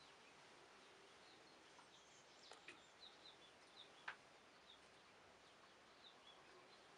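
Near silence outdoors with faint, scattered bird chirps and a couple of small clicks.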